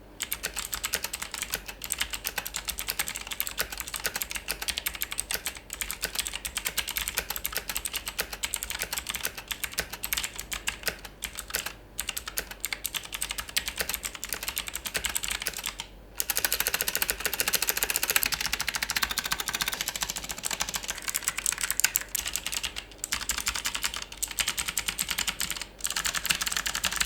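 Typing on a Logitech G Pro X mechanical keyboard with its stock GX Blue clicky switches: a fast, continuous run of sharp key clicks with a few short pauses, getting louder a little past halfway through.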